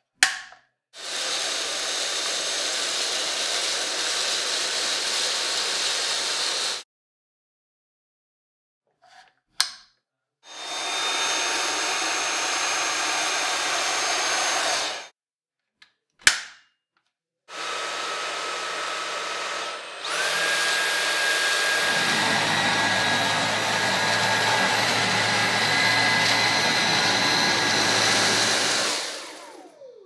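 Dyson V8 cordless stick vacuum's motor running in three separate stretches of several seconds each, each run coming shortly after a sharp click. In the last run the sound steps up about two seconds in with a steady whine, and a low hum joins soon after.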